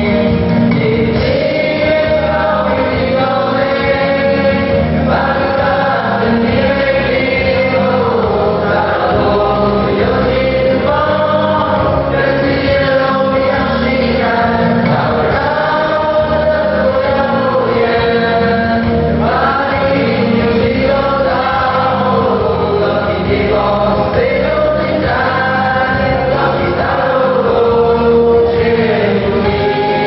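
Mixed youth choir of young men and women singing a hymn together in continuous, held phrases, steady in loudness throughout.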